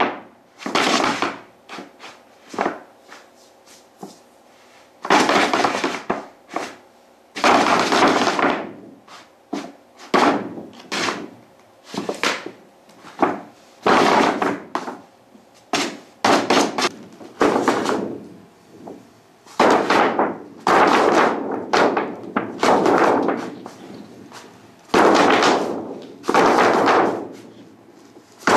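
Large sheet of white paper rustling and crinkling as a cat paws and scratches at it, in about two dozen irregular bursts with short pauses between.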